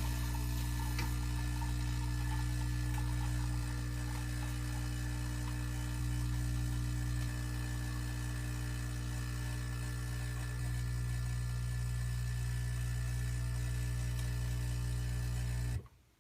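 Saeco Incanto Classic espresso machine's pump humming steadily as it brews a full cup of coffee, with a few small shifts in level, then cutting off suddenly near the end as the brew finishes.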